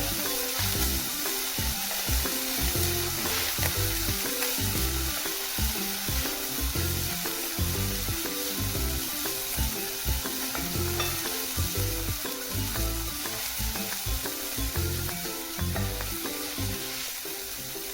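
Food sizzling as it cooks on a grill, a steady crackling hiss, under background music.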